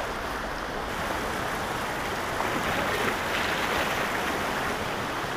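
Steady rushing of a rocky creek's water running over riffles and stones.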